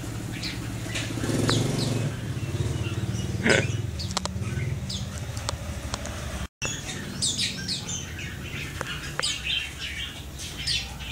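Red-whiskered bulbuls giving short, sharp chirping calls, more of them in the second half, with wings fluttering in a wire bird cage that is being handled. A sharp knock about three and a half seconds in, over a low steady rumble.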